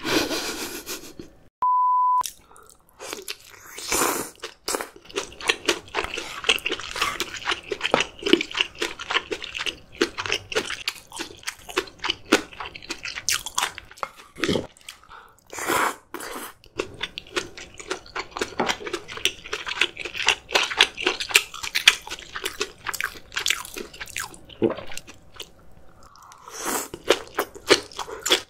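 Close-miked eating: dense, rapid crunching and chewing of food in the mouth. About two seconds in, a short, loud, steady beep sounds once.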